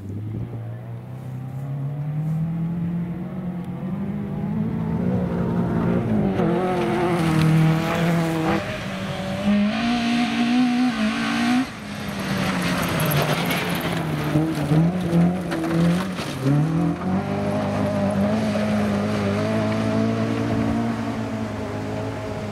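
Rally car engines running hard on gravel stages, the engine note climbing and then dropping sharply at each gear change. A second car is heard after a cut just under halfway.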